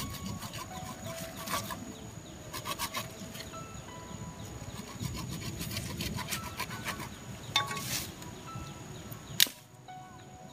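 Machete blade scraping and chopping at a freshly dug lantana root, in bursts of quick strokes, with a single sharp knock near the end.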